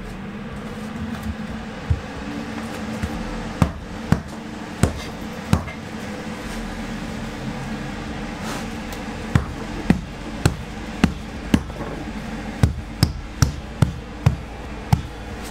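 Thesslagreen heat-recovery ventilation unit running with its fans set to 100%, a steady hum that grows a little stronger about six seconds in. The unit's casing is open, so it runs louder than it does closed up. About fifteen sharp knocks and clicks sound over the hum, scattered and bunching towards the end.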